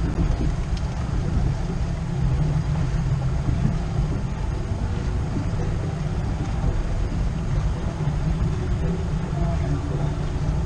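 Wind buffeting the camera microphone on an open boat: a steady, loud low rumble.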